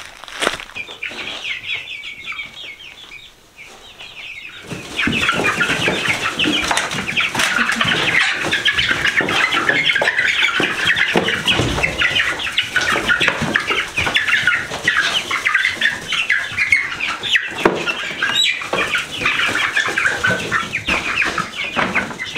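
A flock of young chickens peeping and clucking together, which becomes loud and continuous about five seconds in as they are caught and handled.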